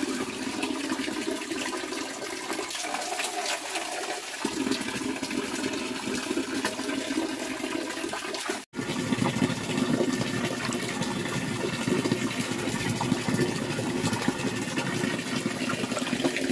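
Water rushing steadily. It cuts out for an instant about nine seconds in and comes back fuller.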